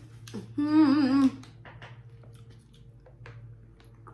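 A woman hums a short wavering tune for under a second, beginning about half a second in. A few faint clicks follow, over a low steady hum.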